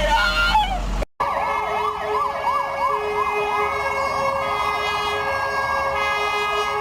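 Electronic siren in a fast yelp, its pitch sweeping quickly up and down about two to three times a second over a steady held tone.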